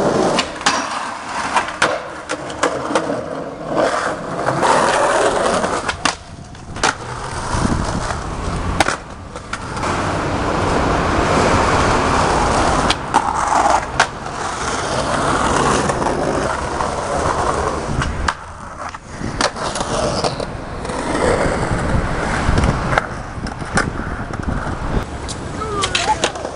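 Skateboard wheels rolling over concrete and paving stones, broken by frequent sharp clacks and knocks of the board striking the ground as tricks are tried. The rolling noise swells and drops off abruptly several times.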